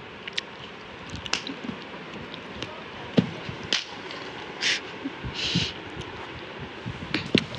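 Soft rustling of bedding and a plush toy being handled and pushed against a sleeping person, with scattered small clicks and a few short hissy rustles.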